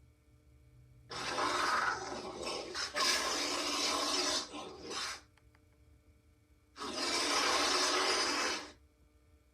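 Rhinobear creature sound effect: harsh, unpitched noisy bursts about two seconds long, the first two running together about a second in and a third a little before the end.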